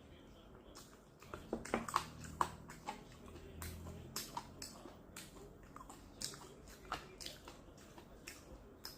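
Close-miked eating sounds: biting into and chewing spicy chicken wings, a string of sharp wet clicks and smacks starting about a second in.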